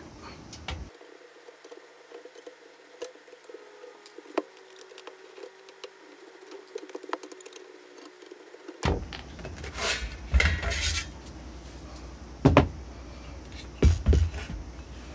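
Faint clicks of a screwdriver taking screws out of the perforated sheet-metal cover of a Takasago TMO18-2.2 linear bench power supply. From about two-thirds of the way in come several louder metallic clunks and rattles as the cover is lifted off and the case opened.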